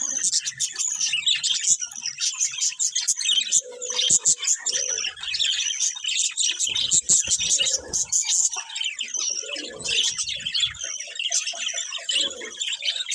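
Several budgerigars chirping and warbling at once in a continuous, overlapping chatter, with scattered sharp clicks.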